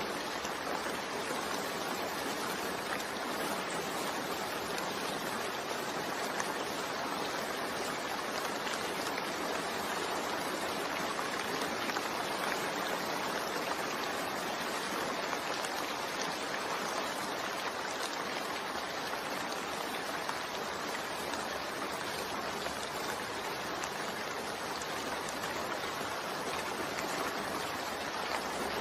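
Continuous rain mixed with white noise: a steady, even hiss of falling rain with no breaks or changes.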